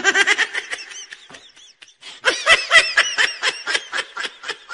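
A person laughing in quick, high-pitched bursts, in two bouts with a short break a little before two seconds in.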